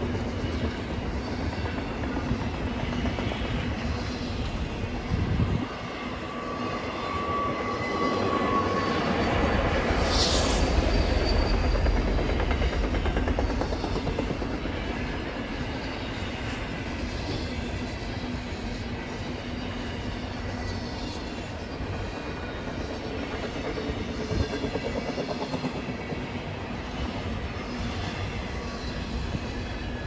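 Freight train cars rolling past at speed: a steady rail rumble with wheels clattering over the track, growing louder for a few seconds about ten seconds in.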